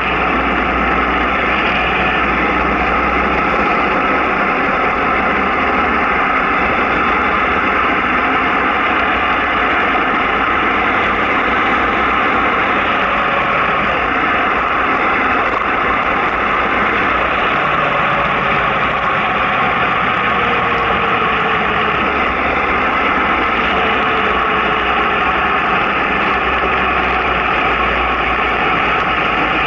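Steady wind and road noise from travelling down a mountain road at about 40 to 60 km/h, loud and unbroken.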